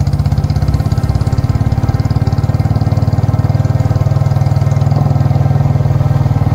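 Vehicle engine idling steadily with an even, fast throb of about ten beats a second.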